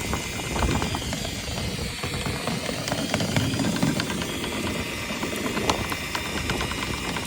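Dryer vent cleaning equipment running steadily in the vent, with scattered clicks and knocks.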